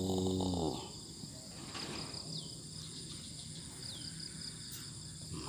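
A man's drawn-out call at the very start. Then a steady high-pitched chorus of insects, with a short falling chirp about every second and a half, over a faint low hum.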